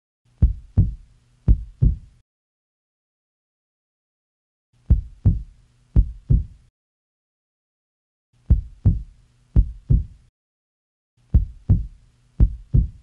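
Heartbeat sound effect: four groups of two lub-dub beats each, deep low thumps, separated by dead silence. The gaps between groups get shorter as it goes.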